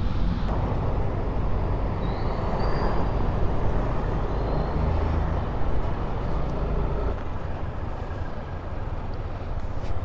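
Motorcycle riding through city traffic: a steady engine hum under continuous road noise.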